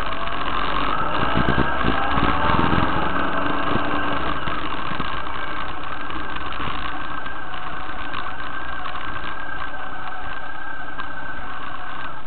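Motorcycle engine running at low speed, heard from the bike itself; the revs rise over the first few seconds as it pulls through a turn, then it runs steadily.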